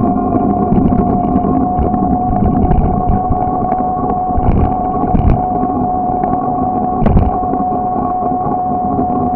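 Bicycle rolling on a cracked asphalt road, heard from a camera on the bike: a steady rumble and wind noise under a constant mid-pitched hum, with a few thumps around the middle, the loudest a little past halfway.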